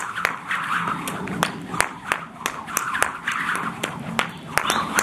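Jump rope slapping the ground in a quick, fairly even rhythm of about two to three sharp slaps a second as someone skips.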